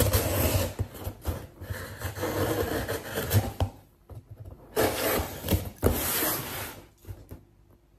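A knife slitting the packing tape along a cardboard box and scraping over the cardboard, with the tape and flaps rubbing and tearing. The scraping comes in two long stretches with a short pause about four seconds in, with a few sharp knocks against the box.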